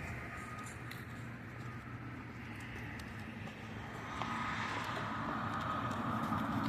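Electric RC truck with a 13.5-turn brushless motor running on a speed pass. Its high motor whine comes up and grows louder about four seconds in, over a steady low rumble.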